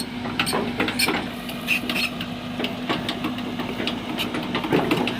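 Heavy machine's diesel engine running at a steady idle, with scattered short clicks and knocks over it.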